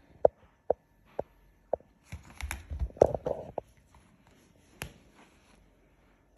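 Four sharp taps about half a second apart, each with a short ring, then a second or so of jumbled knocking and rustling, and one more tap near the end.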